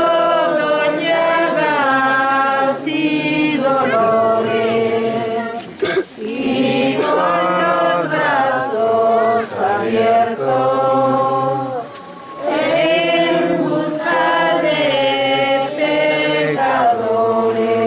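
A group of women singing a Holy Week hymn together, in long held notes.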